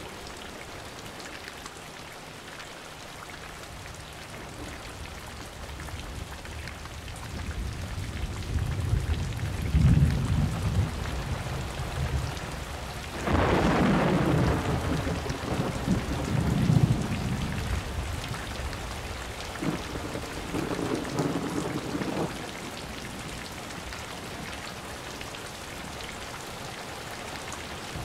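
Thunderstorm with steady rain falling. A low thunder rumble builds to a peak about ten seconds in, then a sudden, louder, sharper clap a few seconds later rolls on for several seconds. A further rumble comes around twenty seconds in, after which only the rain remains.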